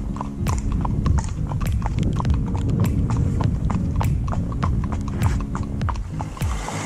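Horses' shod hooves clip-clopping on a wet tarmac road, a steady run of several sharp hoofbeats a second from more than one horse.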